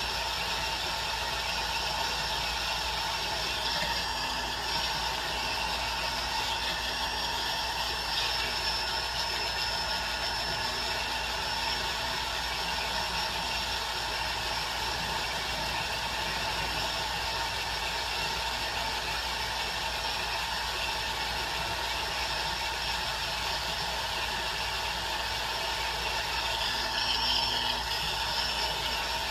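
Jeweler's small rotary tool running steadily while smoothing the welded bail of a metal charm, its tone shifting slightly as it bears on the metal a few seconds in and again near the end.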